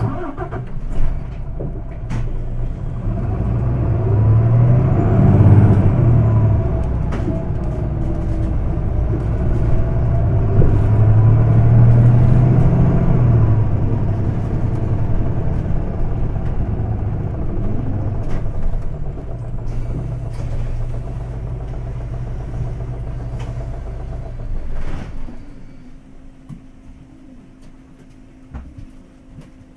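Isuzu Erga city bus's diesel engine heard from inside the cabin with the windows open. The bus pulls away, its engine note building twice in strong surges, then runs steadily until it drops off about 25 seconds in as the bus eases off. A sharp knock comes about a second in.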